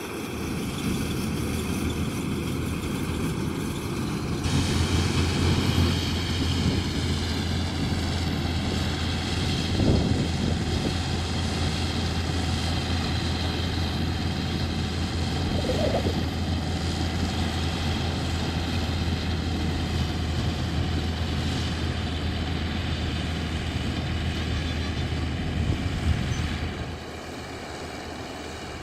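Farm machinery diesel engine running steadily during harvest work. It gets louder about four seconds in and drops back near the end.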